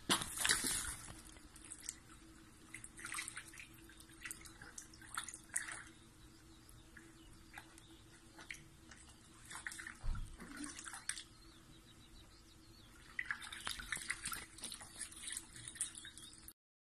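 A dachshund wading through a shallow puddle, its legs splashing the water in irregular spells, busiest about a second in, around the middle and in the last few seconds. A faint steady low hum runs underneath.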